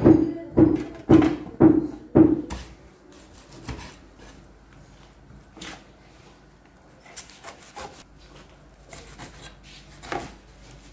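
Background music with a steady percussive beat for the first two seconds. It is followed by a large kitchen knife chopping leafy greens on a plastic cutting board: soft, irregular knocks and scraping strokes, busiest near the end.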